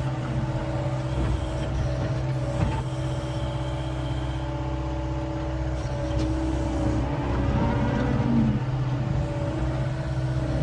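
John Deere 333E skid steer's diesel engine running steadily, with a single sharp knock about two and a half seconds in and a slight swell in level near the end.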